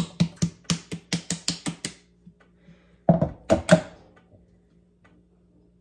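A Bundt pan full of cake batter knocked repeatedly against the counter to bring up air pockets: sharp knocks about four a second that stop about two seconds in, then three more knocks a little after three seconds.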